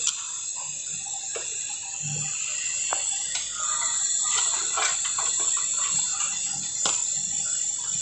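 Gas brazing torch flame hissing steadily while copper refrigerant pipe joints at a refrigerator compressor are brazed, with scattered sharp clicks over it.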